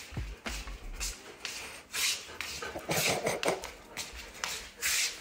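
A grooming brush swishing through an Australian Shepherd's long coat in a run of quick, repeated strokes, with a few dull knocks early on.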